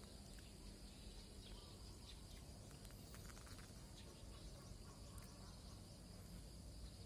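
Near silence: faint outdoor background noise, a low rumble with a steady faint high-pitched hiss and a few soft ticks.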